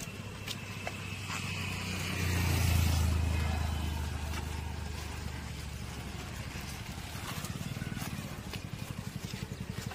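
A motorcycle engine running close by. It swells louder about two to three seconds in, then eases back to a steady low putter.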